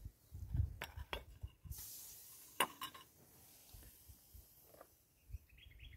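A few light metallic clinks in the first three seconds as a saucepan lid is lifted off and set down on a fire grate and a fork prods boiled potatoes in the metal pot.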